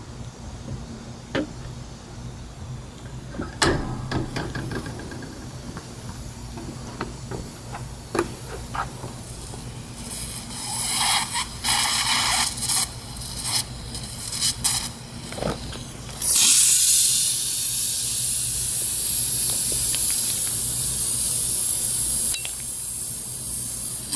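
Overheated battery cells venting inside a toaster oven. A few clicks are followed by irregular sputtering hisses, and about two-thirds of the way through a sudden loud, steady jet of hissing gas starts and keeps going.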